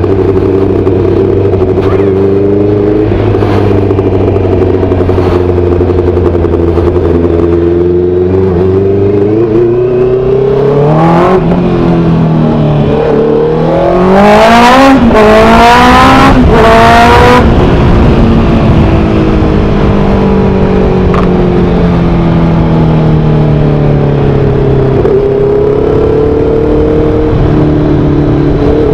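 Honda CB650R's inline-four through an SC Project-style full aftermarket exhaust, heard from the rider's seat. It runs steadily at low speed, then accelerates hard through several quick upshifts about halfway through, the note rising and cutting off at each shift. Afterwards the pitch falls as it eases off, then settles to a steady cruise.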